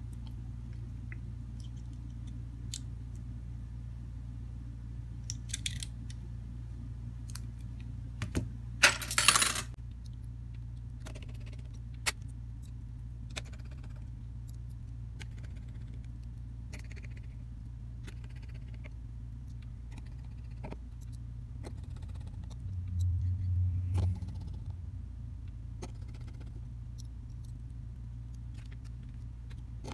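Scattered light clicks and taps as a Samsung Galaxy A32's parts are handled and pressed together by hand, with one louder noise lasting about a second, about nine seconds in, over a steady low hum.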